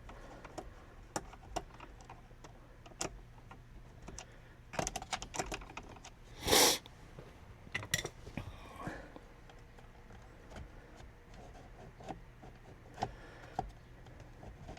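Scattered small clicks and taps of a screwdriver and plastic steering-column trim parts being handled, with one louder, brief scrape about six and a half seconds in.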